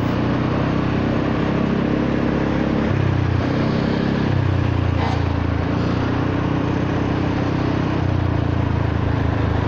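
Honda Forza 300 scooter's single-cylinder engine at low, nearly steady revs through an aftermarket exhaust, a soft exhaust note while cruising, with wind and road noise over it.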